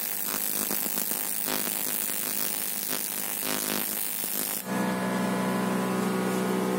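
AC TIG welding arc buzzing steadily as filler rod is fed into a joint on an aluminium bicycle frame. About two-thirds through, the buzz suddenly turns louder and deeper.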